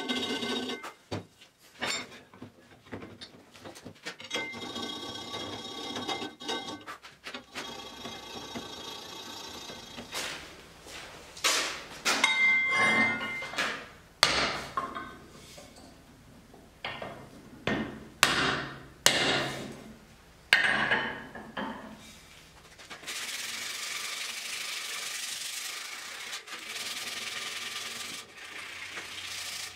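A hand rasp scraping over the wooden handle of a hand-forged hewing axe in repeated strokes. It is followed by about ten sharp, separate knocks as the axe is worked at the anvil, and then by steady, even sanding of the handle by hand.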